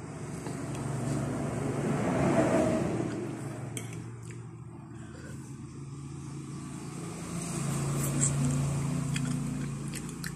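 A motor vehicle engine running as it passes, with a steady low hum that grows louder twice, about two seconds in and again around eight seconds in.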